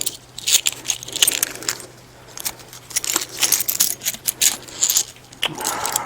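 Irregular light metallic jingling and clicking, like a key ring being handled, over a faint steady low hum; no engine is running or cranking.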